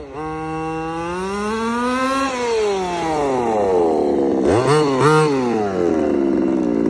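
Small two-stroke petrol engine of a 1/5-scale FG Formula One RC car. It revs up as the car runs in, drops in pitch as it slows, and is blipped twice about four and a half and five seconds in. It then settles into a steady idle.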